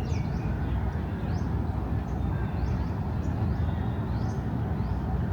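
Birds chirping in short rising notes, about one a second, over a steady low rumble of city traffic.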